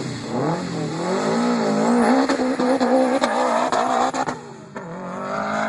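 Turbocharged Subaru flat-four engine revved hard and held high, its pitch wavering, with a rapid run of sharp exhaust pops through the middle; the revs drop about four and a half seconds in, then climb again near the end.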